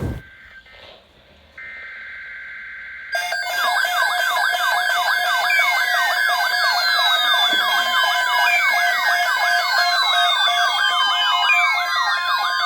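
Electronic siren and alert tones: a short thump, then a steady tone from about a second and a half in. About three seconds in, a loud layered mix starts: fast repeating yelp-like falling sweeps, slower falling glides and held steady tones.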